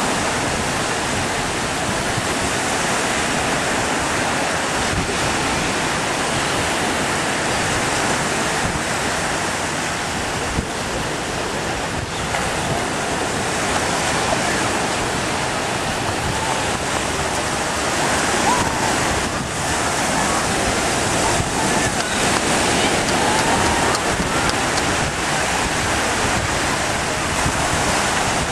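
Steady wind on the microphone and surf from the sea, an even rushing noise.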